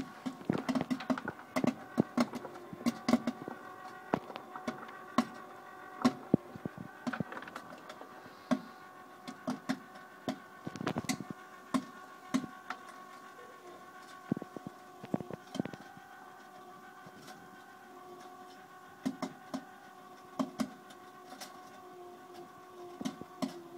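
Kettle-style popcorn machine popping corn: irregular sharp pops of kernels bursting, several a second at times, over the machine's steady hum.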